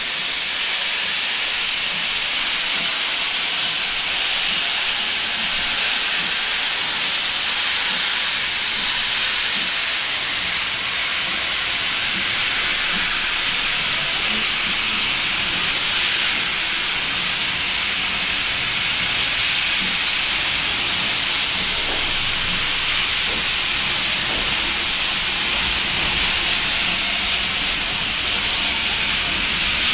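Steam locomotive hissing loudly and steadily with escaping steam as it slowly draws its coaches past, with a low rumble of the train rolling that grows stronger in the second half.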